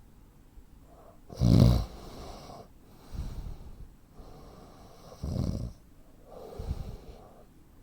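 A man's heavy snoring starting up again out of quiet: a loud snort about a second and a half in, then several rougher snoring breaths, before it falls quiet again. This is the pattern of breathing pauses typical of sleep apnea.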